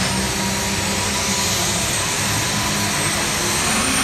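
Pulling tractor's engine running loud and steady while hooked to the sled at the start line, with a thin high whistle over the engine noise, typical of its turbocharger.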